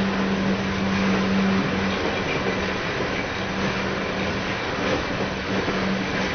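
Coal hopper cars of a long freight train rolling past: a steady rumble of steel wheels on rail. A low steady hum runs under it and breaks up about two seconds in, then comes and goes.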